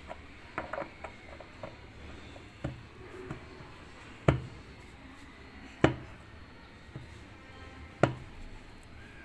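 Three sharp knocks about a second and a half to two seconds apart, with lighter clicks and taps before them: tools at work dismantling a washing machine to reach its drum bearings.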